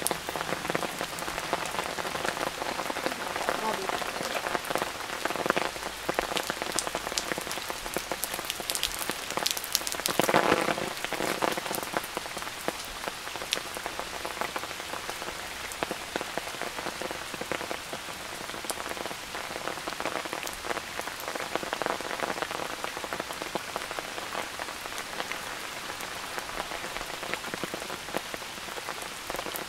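Steady rain falling, with many close drops pattering individually. There is a brief louder swell about ten seconds in.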